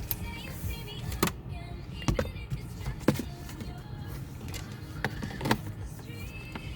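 Hard plastic interior trim pieces knocking and clicking as they are handled and fitted onto a car's center console, several separate sharp knocks spaced a second or so apart.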